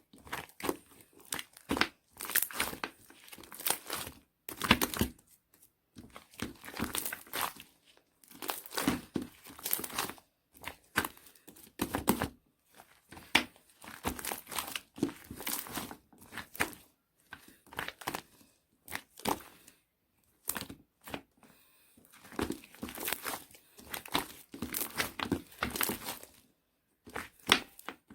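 Crinkling and rustling in irregular bursts, with short pauses between them.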